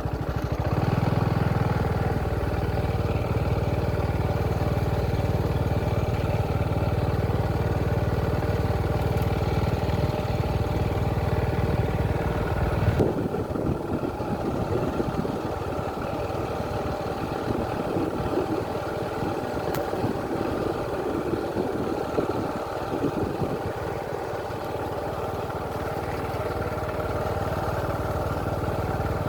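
An engine running steadily, with a low rumble that drops away about halfway through while the higher steady drone carries on.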